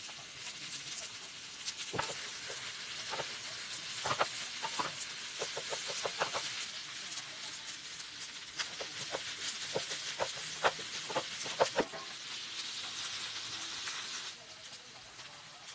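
Rice frying on an electric hot plate: a steady sizzle with repeated sharp taps and scrapes of utensils against the pan. The sizzle drops to a quieter level near the end.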